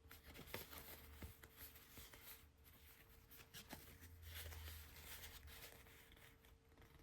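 Faint soft rustling and small ticks of paper trading cards being handled and slid one past another, over a thin steady hum.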